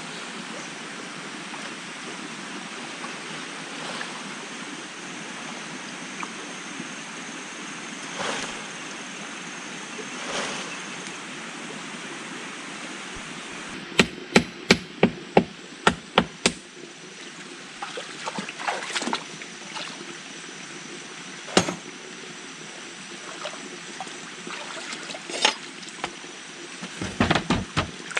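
Steady rush of flowing water. From about halfway, sharp wooden knocks from a wooden mallet driving a post: a quick run of about eight, then scattered single knocks and a short flurry near the end.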